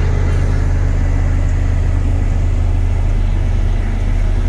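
LiuGong single-drum road roller's diesel engine running steadily as the roller drives forward, a loud, even low drone.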